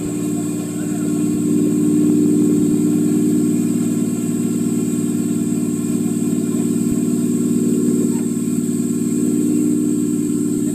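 Competition off-road 4x4's engine running steadily at idle.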